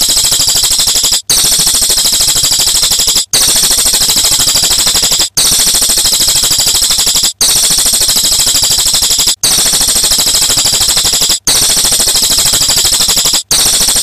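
Looped songbird-training (masteran) recording of a loud, shrill, fast-rattling call, replayed in segments of about two seconds, each broken off by a brief gap.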